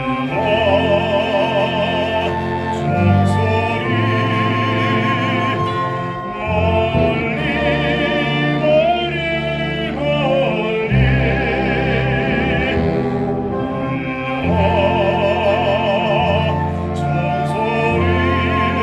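Baritone singing in a classical, operatic style with wide vibrato, in sustained phrases of a few seconds, over instrumental accompaniment with a steady bass.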